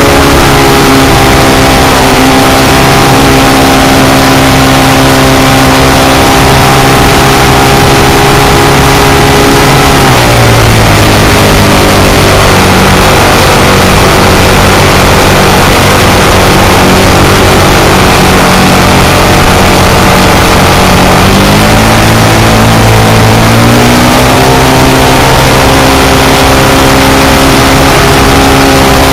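Clipped-wing Cub's engine running in flight, heard from the landing gear under heavy wind rush on the microphone. About ten seconds in the engine note drops to a lower pitch, and a little over twenty seconds in it climbs back to where it was.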